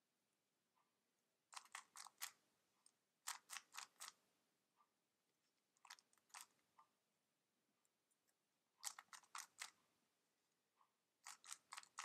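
Stickerless 3x3 speed cube being turned quickly by hand: five quick runs of four or five sharp clicking layer turns, with short pauses and a few faint single clicks between them.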